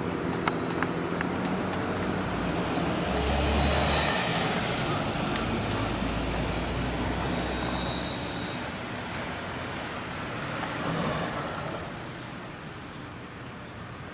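Road vehicles passing close by: one swells up and fades with its loudest moment about four seconds in, and a second, quieter one passes near the end. A steady low engine hum sits underneath and fades early on.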